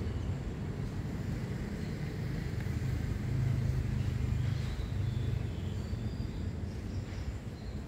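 Low rumble of motor traffic, swelling as a vehicle passes about three and a half to four and a half seconds in.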